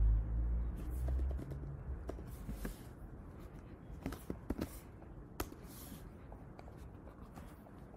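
A few scattered clicks of computer keyboard keys being pressed as code is edited, with a low hum in the first couple of seconds.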